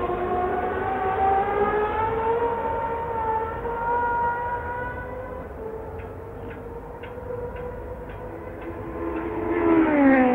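1971 Formula 1 racing car engine at high revs, its pitch climbing steadily over the first few seconds as the car accelerates, then holding. Near the end it gets louder and the pitch drops sharply as a car passes.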